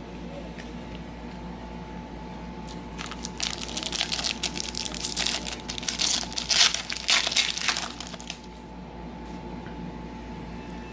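Foil trading-card pack wrapper crinkling and crackling as it is handled, starting about three seconds in and stopping about five seconds later.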